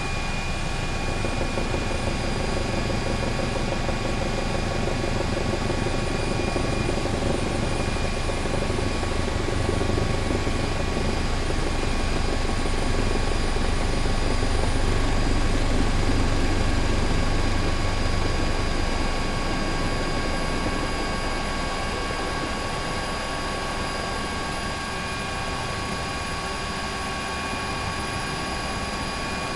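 Helicopter running steadily, its turbine and rotor heard from on board as a continuous drone with steady whining tones, growing slightly louder in the middle and easing off near the end.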